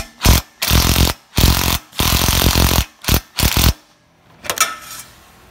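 Impact wrench fired in a string of short bursts, about seven in under four seconds, each a rapid hammering rattle. A brief squeak or scrape follows about a second later.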